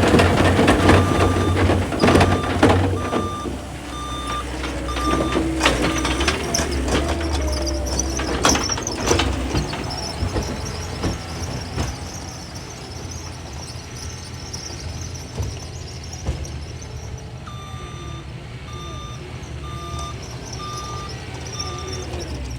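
Skid steer diesel engine running while the machine's back-up alarm beeps in two stretches, near the start and again near the end. Sharp metallic clanks and knocks sound repeatedly through the first half.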